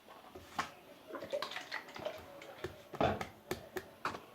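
Sticky homemade glue slime squelching and popping as it is poked and pulled, a run of short, irregular wet clicks, the loudest about three seconds in.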